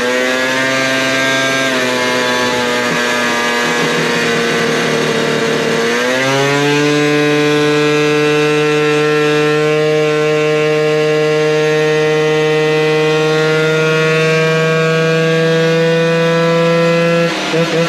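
Honda Elite AF16 scooter's two-stroke engine at full throttle on a dyno, tuned rich with a Smart Carb carburettor. It holds a steady pitch for about six seconds, then jumps up and climbs slowly through the revs until the throttle is shut near the end.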